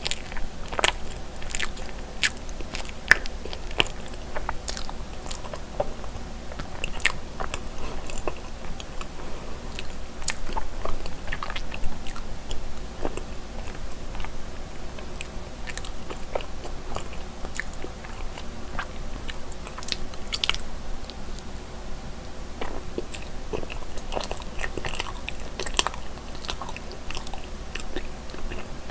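Close-up chewing of a cream-cheese-filled mochi rice cake, with many short, sharp, sticky mouth clicks.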